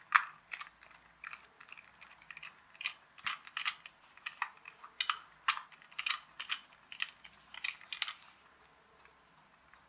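Precision screwdriver backing a small screw out of a plastic toy car's battery cover: a run of light, sharp clicks, about three a second, that stops about eight seconds in as the cover comes off.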